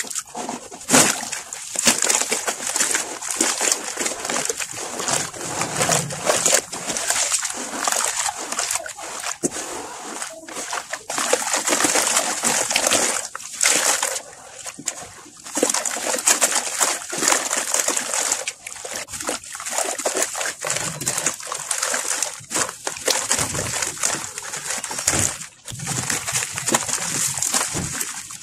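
Hands splashing and sloshing water in a plastic tub while crumbling a soaked sand-and-cement block underwater, in irregular gritty surges.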